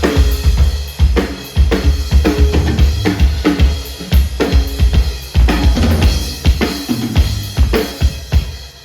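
Drum kit played in a steady groove, kick drum and snare with cymbals, several hits a second, for a drum sound check.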